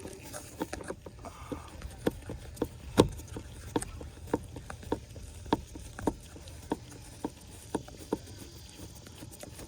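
Screwdriver backing a small screw out of a car door trim panel: a steady train of light clicks, a little under two a second, with one sharper click about three seconds in.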